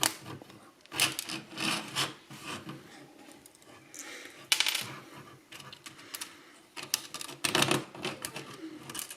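Small plastic and metal parts of a disassembled BMW instrument cluster being handled: irregular clicks, taps and light clatter.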